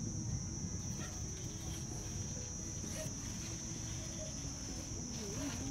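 Steady high-pitched drone of insects calling, one unbroken tone, over a low rumble.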